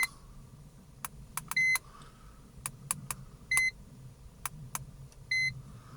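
Handheld iCarsoft LR V2.0 diagnostic scanner being worked through its fault-code menus: sharp button clicks with a short, high key-press beep three times, over a faint low hum.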